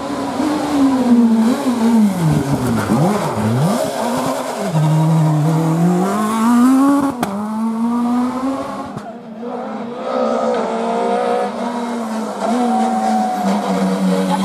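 Rally car engines revving hard through a hairpin. The engine note drops and climbs sharply several times in the first few seconds, then rises and falls in steps with gear changes. After a brief dip about nine seconds in, a Peugeot 206 rally car's engine takes over, running fairly steadily before dropping away at the end.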